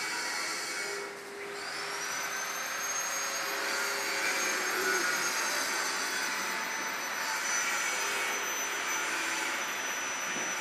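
A machine running with a steady rushing noise and a high whine; about a second and a half in, the whine rises in pitch and then holds steady.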